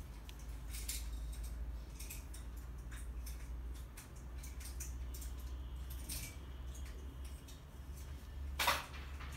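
Handling noise: scattered light clicks and rustles over a low steady hum, with one short, louder rustle or scrape near the end.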